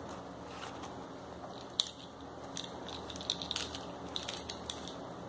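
Clear plastic pockets of a sewn toiletry pouch crinkling and crackling as it is handled, in scattered short crackles, with a sharper one about two seconds in and more through the middle.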